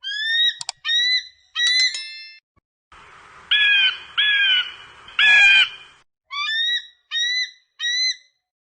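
An animal's short, high-pitched calls, repeated in runs. A string of quick calls comes first, then three longer arched calls over a hissy background, then four more short calls near the end.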